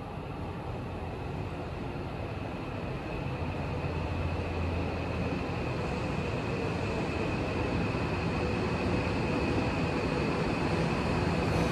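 Tokyo Metro 18000 series electric train approaching through the subway tunnel and running into the platform, its rumble growing steadily louder, with a steady high whine over it.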